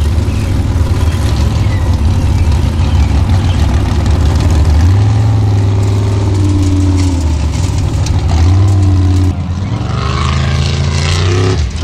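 Formula Offroad Unlimited-class buggy's engine revving hard and loud, its pitch swinging up and down over and over as it climbs and slides on dirt. The sound drops off sharply about nine seconds in, then resumes.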